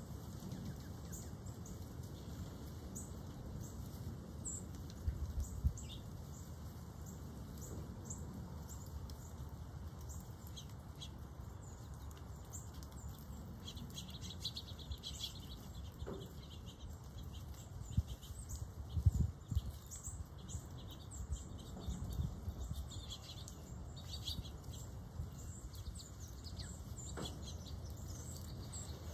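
Small birds giving short, scattered chirps and calls, over a steady low rumble that swells briefly twice.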